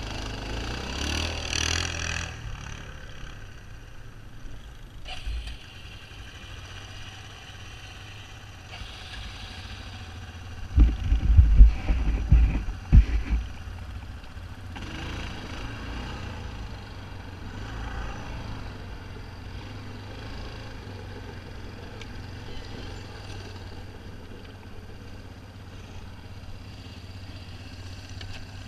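Quad ATV engine idling steadily, with a cluster of loud, low thumps a little past the middle.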